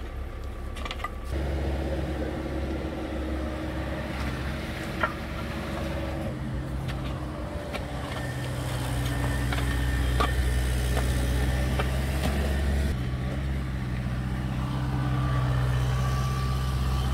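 Excavator engine running steadily while digging, its note stepping up slightly after about a second and growing louder about halfway through, with a few sharp knocks.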